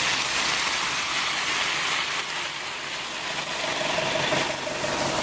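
Engine of a large delivery truck running, with a steady whine coming in near the end.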